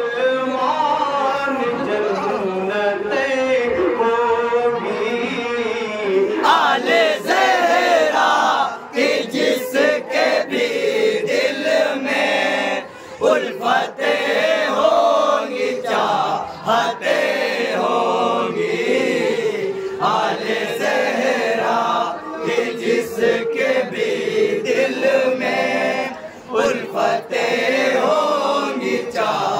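A man chanting a Muharram manqabat in long, drawn-out sung lines, with short pauses between phrases.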